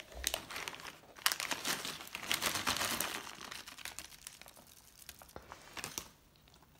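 Clear plastic wrap crinkling and crackling as it is handled and pulled off a cookie: a dense run of sharp crackles that thins out in the second half.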